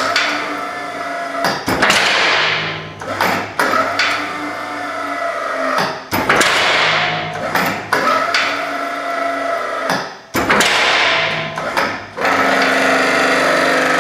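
Western snowplow's electric-hydraulic pump running in repeated runs of about two seconds as the blade is angled back and forth, each run starting and stopping with a click, a steady tone over a rough, hissing noise. The owner thinks the pump is ruined.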